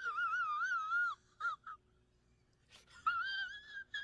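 A man crying with two high, wavering whimpers. The first lasts about a second, and the second starts about three seconds in, with short catches of breath between them.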